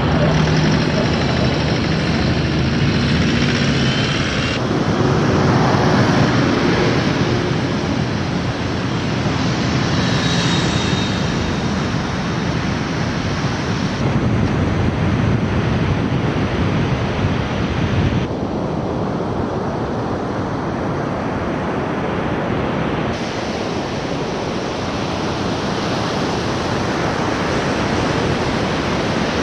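Four-wheel-drive engines running as the vehicles drive on beach sand, heard under a constant loud hiss of wind and surf. Then breaking waves. The sound changes abruptly several times where clips are cut together.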